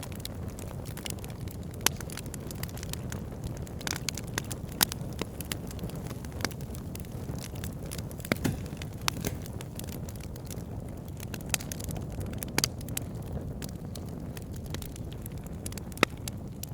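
Campfire burning: a steady low rumble of flames with irregular sharp crackles and pops from the burning wood. A few pops stand out louder than the rest.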